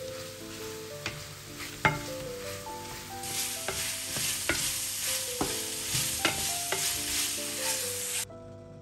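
Shrimp sizzling in a stainless steel frying pan as the vodka cooks off, stirred with a wooden spatula that scrapes and taps against the pan. The sizzle grows louder about three seconds in and cuts off suddenly near the end.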